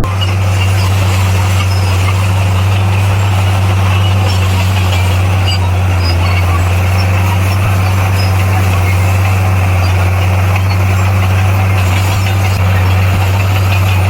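Komatsu bulldozer's diesel engine running with a steady low drone that holds the same pitch throughout.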